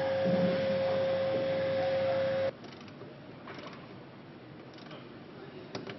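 Workshop machinery: a steady mechanical whine over a hiss, which cuts off suddenly about two and a half seconds in. Quieter clicks and knocks follow, with one sharper knock near the end.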